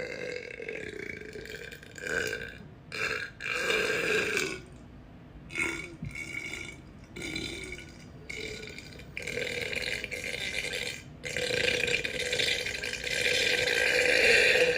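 A person burping: a run of several long, drawn-out burps with short breaks between them. The last one, starting about three-quarters of the way in, is the longest and loudest.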